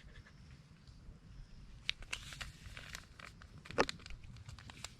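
Packet of white gelatin being handled: faint crinkling with scattered light clicks, two sharper ones about two and four seconds in.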